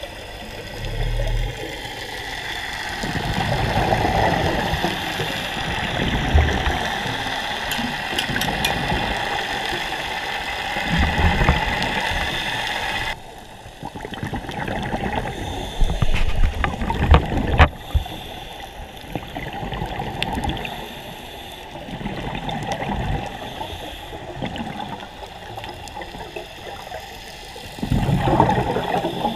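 Water sloshing and gurgling around a camera held at the surface, with small waves slapping against it. The wash cuts abruptly to a quieter one about halfway through, and a few sharp knocks follow soon after.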